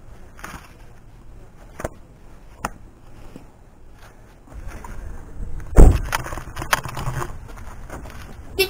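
Handling noise on a moving camera: scattered light clicks and knocks, then a low rumble from about four and a half seconds with one loud thump near six seconds.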